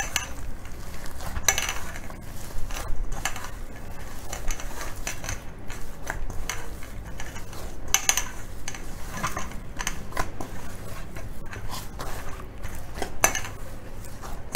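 Hands kneading a soft wheat-flour dough in a stainless steel bowl, the metal bowl knocking and scraping irregularly as the dough is pressed and folded.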